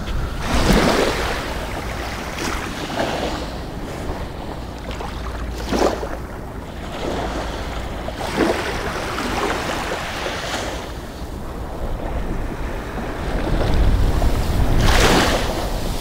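Small waves lapping and washing over a shallow sandy shore, a soft rush every two to three seconds. Wind buffets the microphone with a low rumble, strongest near the end.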